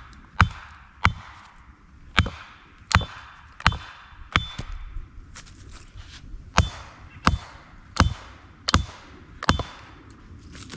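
Carved wooden wedges being hammered into a knotty log to split it: about eleven sharp, ringing strikes in a steady rhythm, with a pause of about two seconds near the middle.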